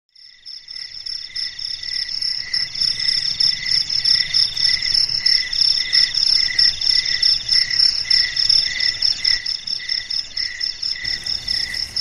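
Night insect chorus: several overlapping high, pulsing trills at different pitches, fading in from silence over the first second or two and then running steadily.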